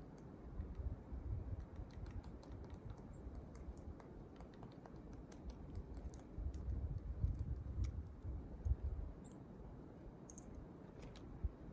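Small wild birds: irregular light clicks and taps, with a few brief high calls near the end, over a low steady rumble.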